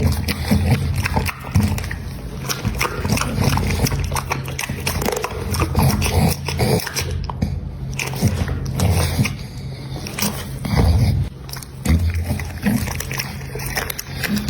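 American Pocket Bully dog eating, chewing and biting its food in a steady run of irregular crunching bites and clicks.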